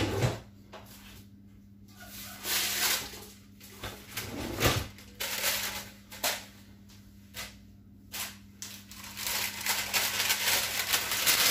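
Parchment baking paper rustling and crinkling as it is handled, in irregular bursts that become almost continuous near the end, with a couple of light knocks.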